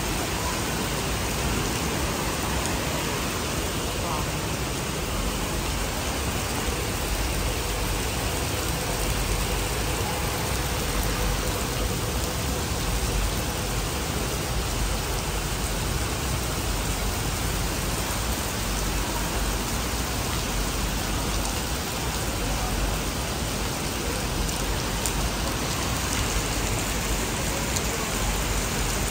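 Heavy rain pouring steadily onto wet pavement, an even hiss of splashing drops.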